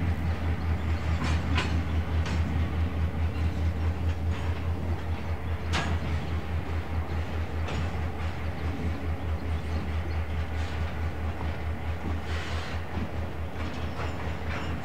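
EMD GP9RM diesel locomotive's two-stroke engine working, a low throb pulsing about four times a second and slowly fading. Scattered sharp clanks from the train rolling over the rails.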